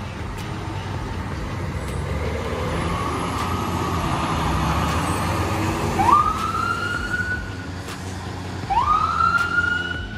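Emergency vehicle sirens as an ambulance and a fire engine pull away, over the low rumble of their engines: a slow rising wail, then two quick upward whoops that level off, about six and nine seconds in.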